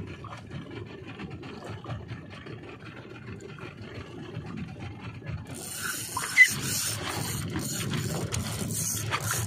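Spinning reel's gears working as a fish pulls on a bent rod, over water sloshing against a small boat's hull, with one sharp knock a little past six seconds in.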